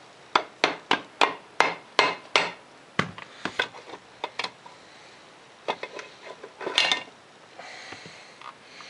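Rubber mallet striking the cast-aluminium side cover of a Polaris 400 engine about seven times in quick succession to jar it loose, then a few lighter metal clicks and knocks as the cover is worked off the crankcase.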